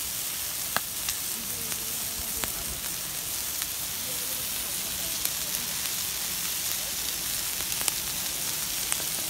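Whole crab grilling on a grate over an open wood fire: a steady sizzling hiss with scattered sharp crackles and pops.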